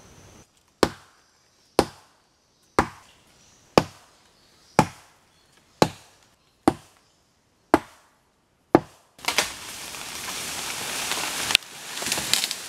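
Ground-stone axe in a wooden handle chopping into a thin tree trunk: nine sharp blows about a second apart. Then a long rustle of leaves and branches, with a crack and crackling near the end, as the cut tree is pushed over.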